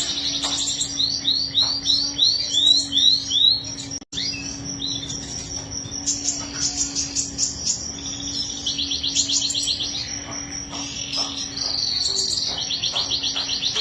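Domestic canary singing long rapid trills and runs of quick rising chirps, with a steady low hum underneath and a brief dropout about four seconds in.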